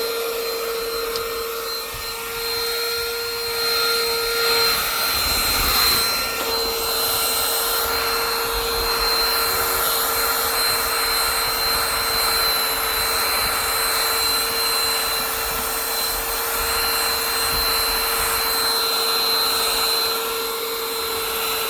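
Compact car vacuum running continuously: a steady motor whine over the rush of air through the nozzle, as it sucks up dirt and debris inside a car.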